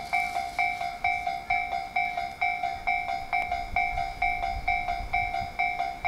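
Japanese railway level-crossing warning bell ringing: an electronic two-tone ding repeating about twice a second. A faint low rumble of an approaching electric train lies underneath.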